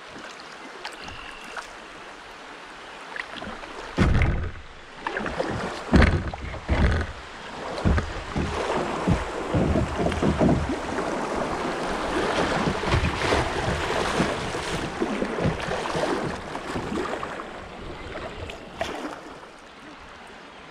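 Kayak running a shallow riffle: fast water rushing and splashing around the hull. It starts about four seconds in with a few loud thumps, stays loud for several seconds and fades near the end.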